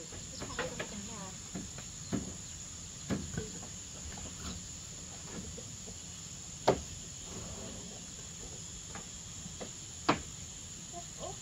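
Steady high-pitched insect chorus, with scattered sharp knocks of bamboo being struck, a hammer on cut bamboo sections; the two loudest knocks come a little past the middle and near the end.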